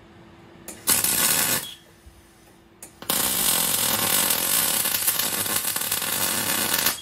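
Electric arc welding on the steel gearbox crossmember with an inverter welder. A short burst of arc crackle comes about a second in, then a longer steady run of crackle starts about three seconds in and stops near the end.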